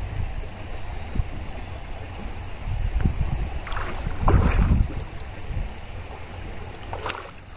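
A hooked fish thrashing and splashing at the water's surface beside a small boat, loudest about four and a half seconds in, over a steady wind rumble on the microphone.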